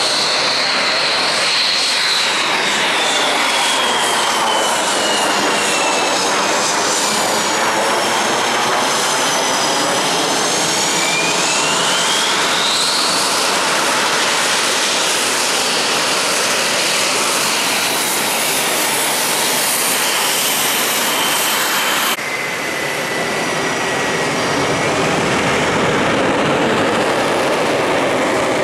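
Saab JAS 39 Gripen jet fighter's single turbofan running at taxi power: a loud, steady jet roar with high whining tones that slide down and then up in pitch. The level dips slightly about 22 seconds in.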